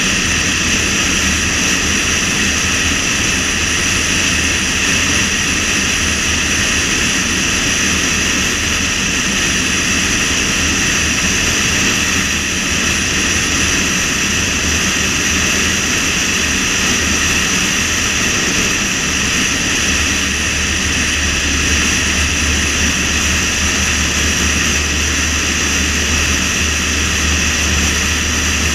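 A car driving steadily at highway speed: constant road and wind noise with a low rumble underneath.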